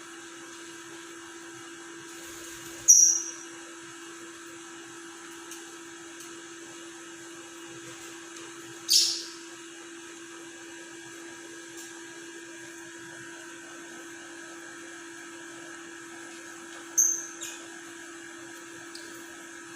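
Lovebird giving three short, shrill chirps several seconds apart over a steady electrical hum.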